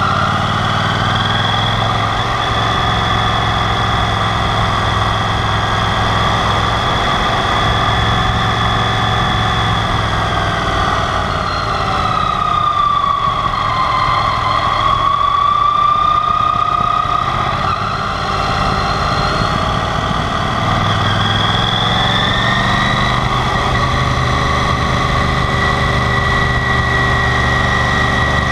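Yamaha TDM 850 parallel-twin motorcycle engine running under way, with wind and road noise, heard from a camera mounted low by the front fork. Its pitch sinks and climbs again about halfway through and rises once more near the end.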